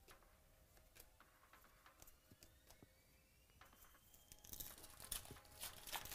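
Foil wrapper of a 2017 Chronicles Baseball card pack crinkling and tearing open, loudest in the last second and a half, after a few faint clicks of cards being handled.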